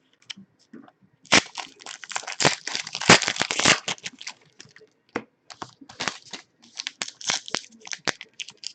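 Plastic trading-card pack wrappers being torn open and crinkled. A dense run of crackling starts about a second in, followed by scattered crinkles.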